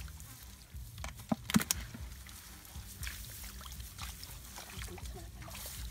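Water pouring and sloshing as a plastic bucket is emptied into a muddy ditch, with a short cluster of sharp splashes or knocks about a second and a half in, over a steady low rumble.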